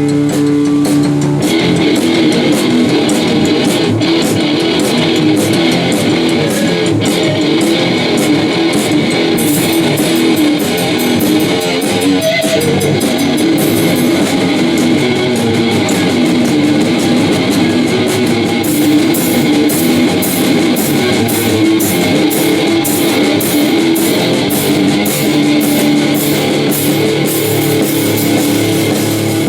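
Electric guitar playing a rock jam: a held note rings at the start, then continuous busy playing follows, with a steady rhythm of sharp high ticks in the second half.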